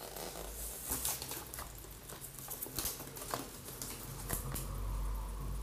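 Hands pressing a self-adhesive Velcro strip and a fabric dust cover onto the plastic chassis of an RC truck: small irregular taps, clicks and scratchy rustling, with a faint low rumble of handling about five seconds in.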